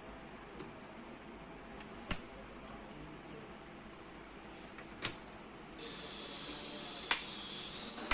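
Four sharp clicks a few seconds apart as computer parts are handled during the build, with a steady hiss that starts about six seconds in.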